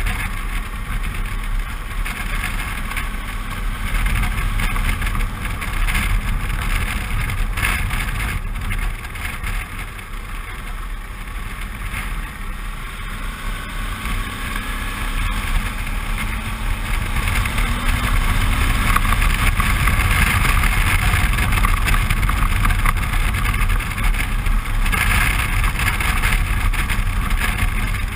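Suzuki V-Strom 650's V-twin engine running steadily at road speed under the rushing noise of riding. The engine note rises a little about halfway through and the sound grows louder after that.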